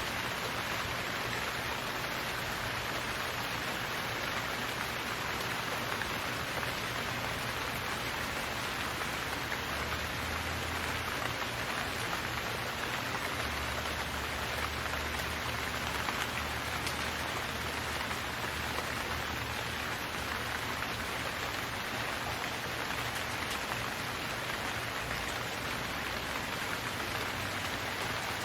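Steady rain falling on a surface, an even hiss of many drops.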